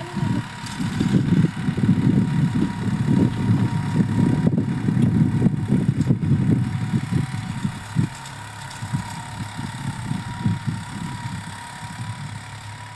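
New Holland 4710 tractor's three-cylinder diesel engine running under load as it pulls a duck-foot cultivator through the soil: an uneven low rumble with a steady thin whine above it, louder for the first half and easing off after about eight seconds.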